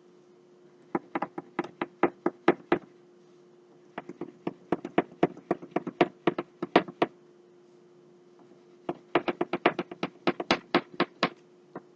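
Crayon coloring on paper laid on a table: three runs of quick back-and-forth strokes, about five a second, each stroke a short tap-like scratch, with pauses between the runs.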